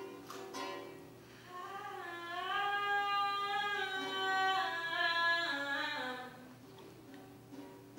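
A few plucked chords on a small guitar-like string instrument, then a voice singing long held notes that slide from one pitch to the next, from about a second and a half in until about six seconds.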